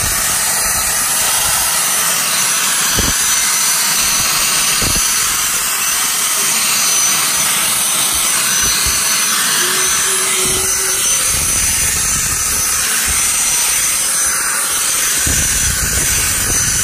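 Dyson cordless handheld vacuum running steadily with a high whine, sucking up the sawdust left from drilling a hole in the desk. A few low knocks come from the nozzle bumping the wood.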